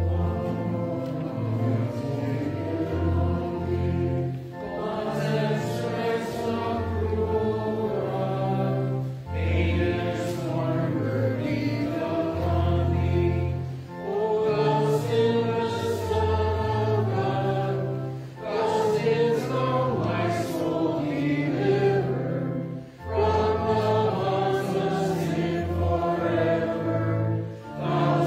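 Congregation singing a hymn with organ accompaniment, the organ's low notes held under the voices. The singing comes in phrases of about four and a half seconds with brief breaks between them.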